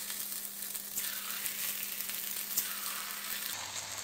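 Pieces of rice dough deep-frying in hot oil in a kadai: a steady sizzle with a few small crackles.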